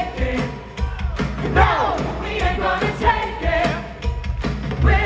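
A live rock band playing a song with electric guitars and sung vocals.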